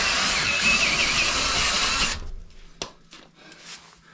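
Cordless drill driving a long auger bit through a solid log wall at full speed, with a wavering high whine over the grinding of wood. It stops abruptly about two seconds in, as the hole comes through, and a few light knocks follow.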